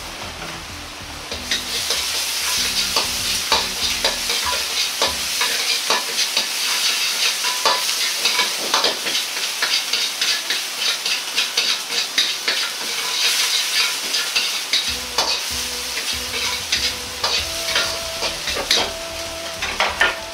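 Minced garlic, ginger and green onion sizzling and crackling in hot oil in a wok, stirred with a metal ladle that scrapes and knocks against the pan. The sizzle gets louder about a second and a half in. The crackle is the aromatics beginning to pop in the oil, the cook's sign that they are ready for the sauce.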